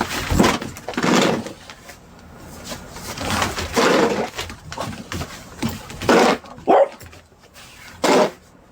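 A dog barking and whining in short separate bursts, about six times, a vocal complaint.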